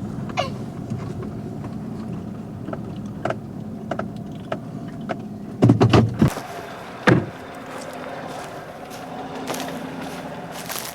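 Truck running on a short drive, heard from inside the cab as a steady low hum. A bit past halfway come a couple of heavy knocks and the hum stops, then a single loud thud about a second later, followed by light clicks and rattles.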